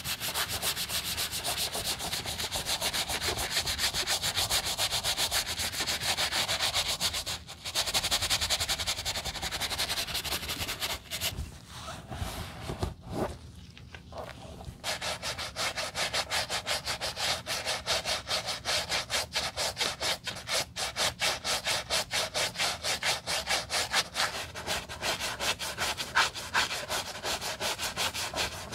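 Stiff-bristled wooden brush scrubbing the foamy rubber cupsole of a white leather sneaker in quick back-and-forth strokes. The scrubbing stops for a few seconds near the middle, then resumes in a fast, even rhythm.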